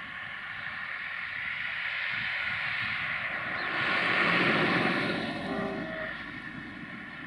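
A vehicle passing, its noise swelling to a peak about four seconds in and then fading away.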